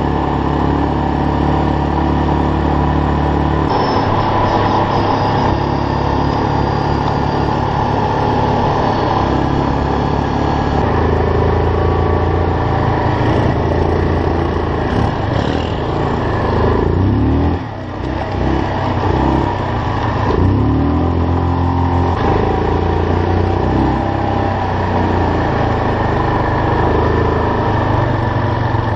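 ATV engine running under way, its pitch rising and falling with the throttle. It eases off briefly a little past halfway, then picks up again.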